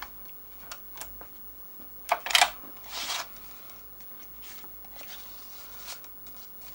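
Handling noises at a workbench: a few light clicks, then two short scraping, rustling noises about two and three seconds in, followed by faint small clicks.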